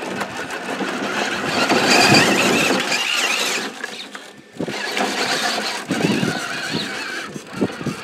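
High-pitched squealing whine from an SCX6 RC crawler's electric motor and geared drivetrain being run, in two stretches with a short break about four and a half seconds in.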